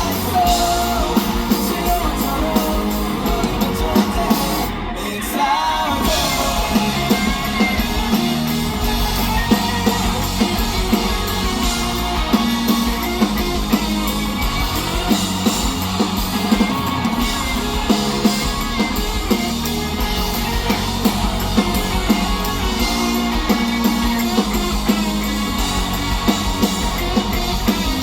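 Live rock band playing loudly: electric guitars and a drum kit on a steady beat, with singing over it. The sound briefly thins out about five seconds in before the full band carries on.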